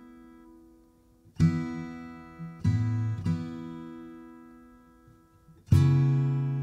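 Background music: strummed acoustic guitar chords, each ringing out and fading, with brief near-quiet lulls between them.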